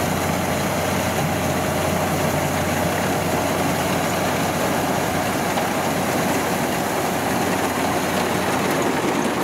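Kubota DC93 rice combine harvester cutting and threshing standing rice, its diesel engine and threshing machinery running under load in a loud, steady drone.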